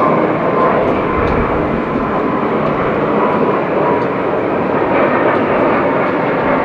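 Boeing 747-400F freighter's four jet engines at takeoff thrust during the takeoff roll: a steady roar with a thin whining tone held through it.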